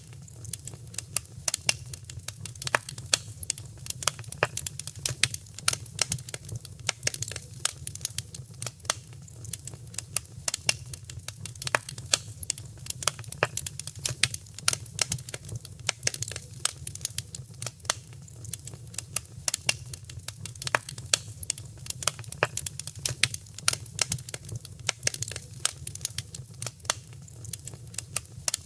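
Wood fire crackling: many sharp, irregular pops and snaps, several a second, over a steady low rumble of the flames.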